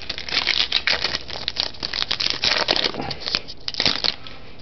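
The wrapper of a 2009 Donruss Classics Football card pack being torn open and crinkled by hand: a dense run of crackles and rustles that thins out near the end.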